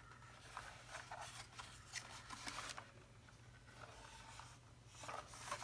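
Faint handling sounds from the mechanical keyboard being turned over and examined: scattered light clicks and rustles, in a cluster over the first couple of seconds and again near the end.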